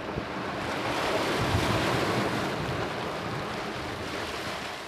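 Waves lapping on choppy lake water, with wind blowing over the microphone. The sound swells over the first couple of seconds and begins to fade out near the end.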